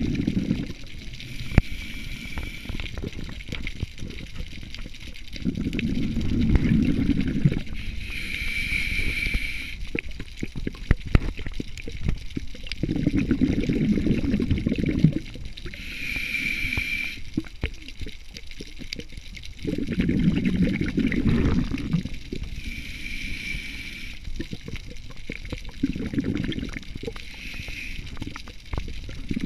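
Scuba diver breathing through a regulator underwater: slow breaths, one every six or seven seconds. Each is a short hiss of inhaling followed by a longer burst of exhaled bubbles gurgling past the microphone.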